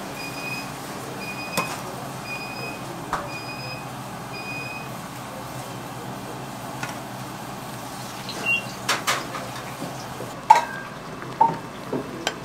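Metal ladle knocking and scraping against a frying pan of bubbling tteokbokki sauce several times, loudest near the end, over steady kitchen hiss. A short high electronic beep repeats five times in the first few seconds.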